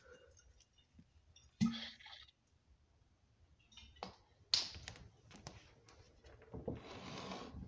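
Faint scattered clicks and taps, with a short low sound about a second and a half in and a stretch of soft noise near the end.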